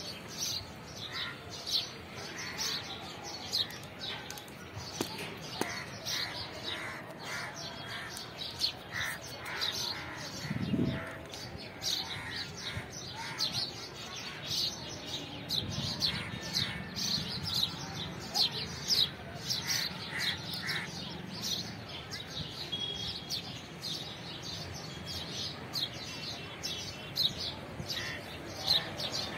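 Birds chirping and calling, a busy run of short, high chirps with a few lower calls among them. A low rumble sits under them for a few seconds in the middle.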